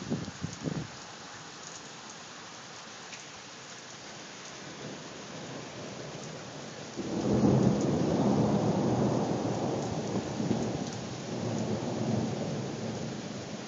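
Steady rain hissing, then about halfway through a loud roll of thunder breaks in suddenly and rumbles on for several seconds, slowly easing.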